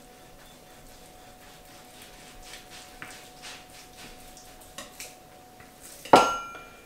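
Kitchen knife scraping and sawing through a partly frozen beef roast on a plastic cutting board, in soft, uneven strokes. About six seconds in comes a sharp clank with a short metallic ring.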